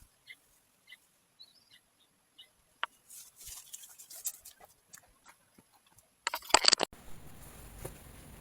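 A small bird chirping in short, scattered high notes, then a brief loud rustling burst about six seconds in, followed by a steady hiss.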